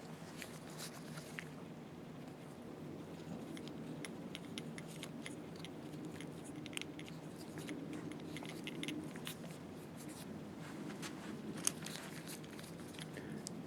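Small metal and plastic slit-lamp parts being handled and fitted by hand: scattered light clicks and scrapes, with one sharper click about three-quarters of the way through, over a steady low hum.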